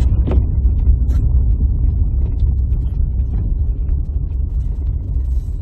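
Outdoor city street ambience: a steady low rumble with a few faint ticks.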